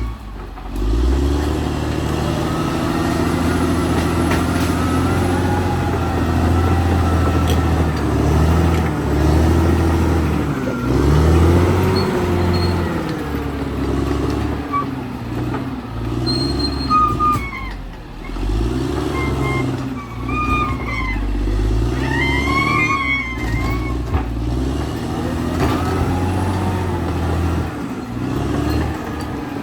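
Caterpillar D6R XL crawler bulldozer's diesel engine working under load, its pitch rising and falling as the operator pushes soil, with short high squeals from the steel tracks now and then, mostly in the second half.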